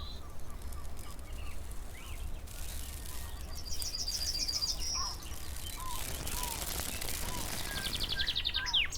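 Small birds chirping: scattered short calls, with a quick high trill of rapidly repeated notes about four seconds in and another near the end, over a steady low rumble.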